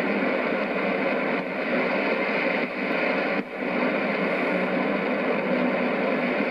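Shortwave AM reception on 6070 kHz through a communications receiver's speaker: a steady rush of static and noise, dipping briefly a few times with fading.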